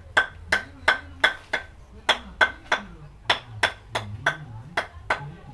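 A wooden paddle knocking against the edge of a black palm-fibre (ijuk) thatch section for a temple roof as it is dressed into shape: sharp, even strikes at about three a second.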